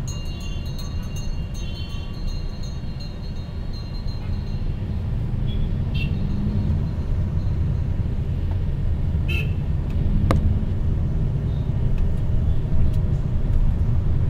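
Engine and road noise heard from inside a moving vehicle: a steady low rumble that grows a little louder after about four seconds, with a few short high tones around six and nine seconds in.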